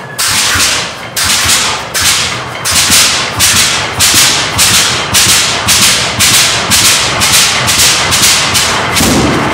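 Antique tractor's large slow-speed engine running just after a cold start, its exhaust firing in sharp cracks about three a second and quickening slightly. It settles into a steadier run near the end.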